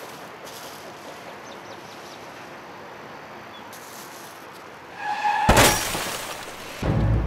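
Steady traffic noise, then about five seconds in a car stops suddenly with a brief, loud, high-pitched screech. Low, pulsing dramatic music comes in near the end.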